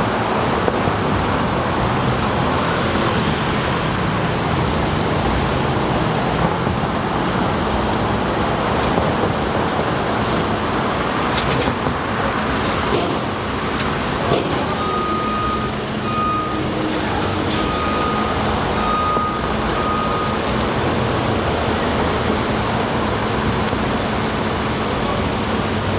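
Steady heavy-vehicle and traffic noise, with a backup alarm beeping repeatedly for several seconds past the middle and once more near the end.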